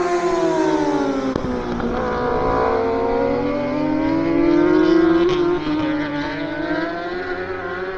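Racing superbike engines at high revs on track. Their pitch slides down over the first couple of seconds, climbs steadily to a peak about five seconds in, then eases off.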